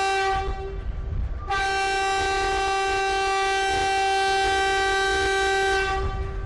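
Locomotive air horn sounding two long blasts on one steady note: the first cuts off about half a second in, and after a short pause a second blast holds for about four seconds.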